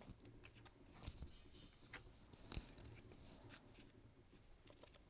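Scissors snipping through strips of patterned paper: a few faint, separate cuts over quiet room tone.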